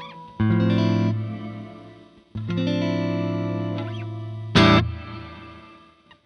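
Clean electric guitar chords through an Empress Reverb pedal on its gate swell with octave setting, a dense set of delays with an added octave up. Two held chords ring and decay, then a short, loud strum about four and a half seconds in dies away, and the sound cuts off to silence at the very end.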